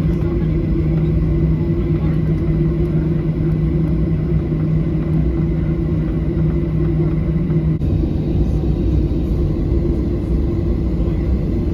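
Steady engine and airflow rumble inside the cabin of a Boeing 737-800, with a constant low hum.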